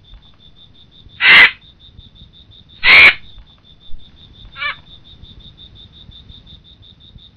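Pterosaur screech calls in a creature sound design: two loud, short screeches about a second and a half apart, then a fainter one about a second and a half later. Under them runs a rapid, steady high-pitched pulsing.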